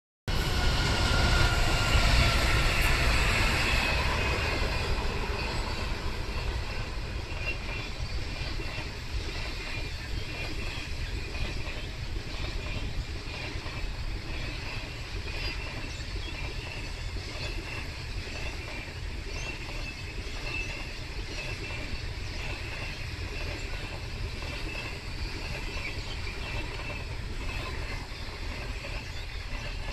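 Passenger train passing close by: the Ghan's diesel locomotive is loudest in the first few seconds, then its long rake of stainless-steel carriages rolls past with a steady rumble of wheels on rail and a faint high-pitched ring.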